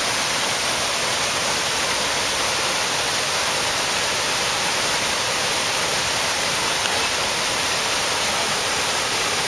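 Steady rushing splash of fountain water jets falling into a pool, an even hiss with no breaks.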